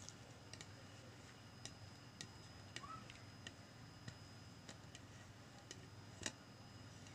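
Near silence: room tone with faint, scattered short ticks, the loudest about six seconds in.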